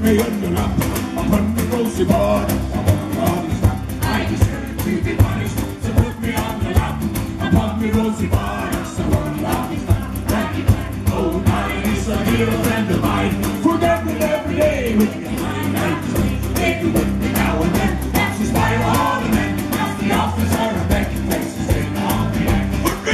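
Live pirate folk-rock band playing, with acoustic guitar strummed over a steady beat and voices singing at times.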